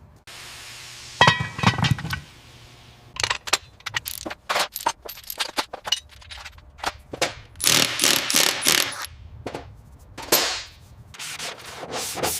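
Hand tools working on car-body metal during rust removal: a short hiss and a loud ringing clank about a second in, then a run of quick scrapes and taps with longer rasping strokes.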